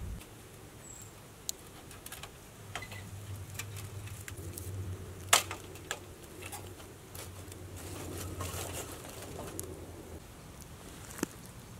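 A log is fed into the side door of a titanium wood-burning stove. There is one sharp knock of wood against the stove about five seconds in, a smaller knock near the end, and scattered small clicks and crackles from the fire.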